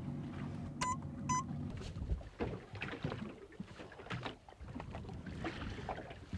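Motorboat under way on open sea: water rushing and slapping against the hull, with wind and a low engine hum that fades after the first couple of seconds. Two short electronic beeps sound about a second in.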